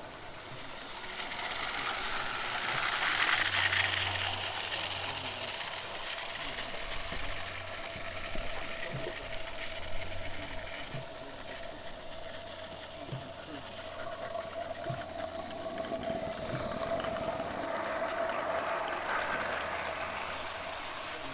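Small live-steam garden railway locomotive running on its track: a rapid mechanical rattle and steam hiss with light clicks from the wheels, swelling twice as the train comes close.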